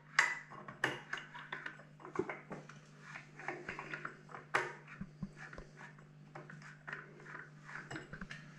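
Irregular metallic clinks and taps of hand tools and small metal parts being handled during work on a scooter engine, with a faint low steady hum underneath.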